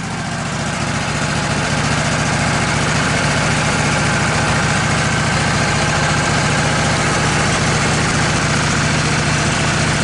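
Portable band sawmill running at speed, its engine droning steadily as the band blade cuts through a log. The sound builds over the first second or two, then holds level.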